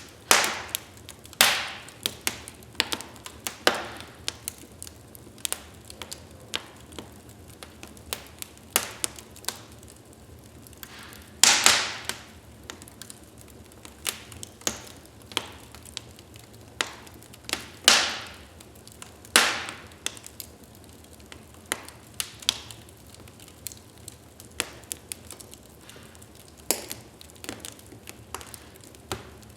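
Wood fire crackling in a fireplace: an irregular run of sharp pops and snaps, several of them much louder, over a faint steady hiss.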